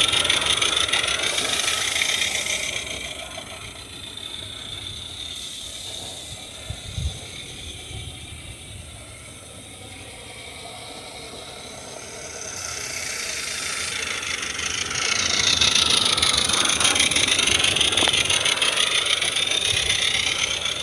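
Roundhouse Sammy live-steam locomotive running with its chuffer giving rapid steam exhaust beats and hiss, and its train rattling on the track. It is loud as it passes close, fades to a quieter stretch as it goes round the far side of the loop, and grows loud again as it comes back near the end.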